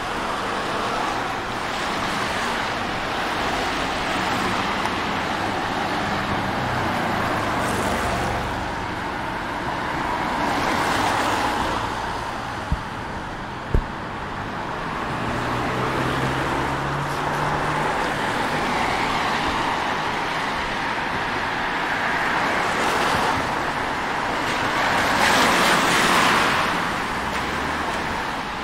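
City street traffic: a steady hum of road noise as cars pass, with two louder swells of tyre noise about a third of the way in and near the end. Two sharp knocks come about halfway through.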